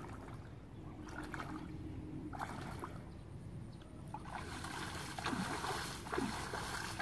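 Shallow pond water sloshing and splashing around a person's legs as he wades, faint at first and fuller and more splashy over the last few seconds.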